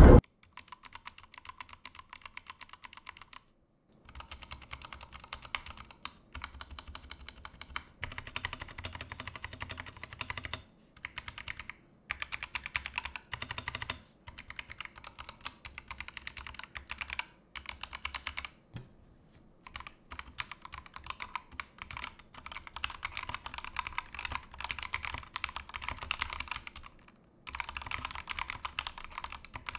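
Continuous typing on a Glorious GMMK2 65% mechanical keyboard with pre-lubed Glorious Fox linear switches in an aluminium frame. It is a dense stream of key clacks in long runs, broken by a few short pauses.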